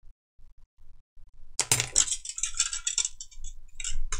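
Small metal hand tools, pliers and tweezers, clicking and clinking as they are handled and set against each other. The first second and a half is nearly quiet, then comes a dense run of sharp clicks and rattles.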